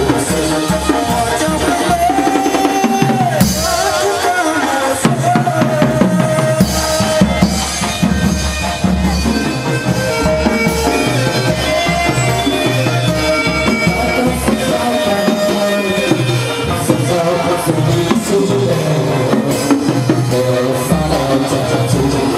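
Vietnamese chầu văn ritual music played by drums and melodic instruments, with a steady drum beat throughout.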